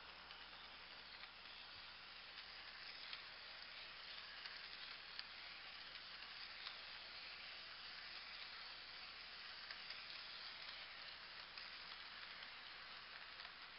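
HO-scale model freight cars rolling past on the track: a faint, steady hiss of small wheels on rail, with scattered light clicks.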